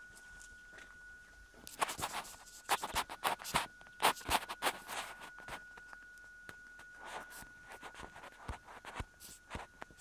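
A steady, thin high-pitched tone sounds throughout, with bursts of rustling and crackling from about two seconds in and again in the second half.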